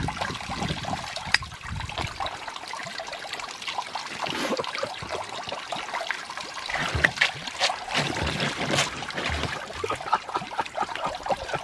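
Water running from a hose, trickling and splashing, with irregular sharp splashes.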